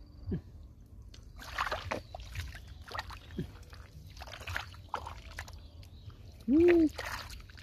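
Hands sloshing and splashing in a shallow muddy puddle while digging clams out of the mud, in a series of separate splashes. Near the end a short voiced call, rising then falling in pitch, is the loudest sound.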